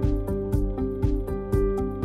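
Background music with a steady beat, about two beats a second, under held melodic notes.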